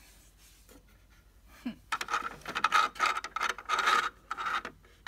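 Small plastic toy pieces being handled, making a quick run of scratchy rubbing and scraping sounds that starts about two seconds in.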